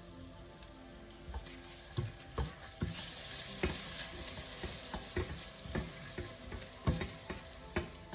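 Butter and sugar sizzling as they caramelize in a stainless steel pot. From about a second in, a silicone spatula stirs and scrapes the mixture and knocks against the pot again and again.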